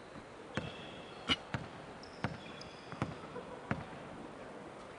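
A basketball bouncing on a hardwood court, about six bounces, roughly one every three-quarters of a second, the loudest a little over a second in: a player's dribbling routine at the free-throw line. A few short high squeaks, typical of sneakers on the floor, fall between the bounces.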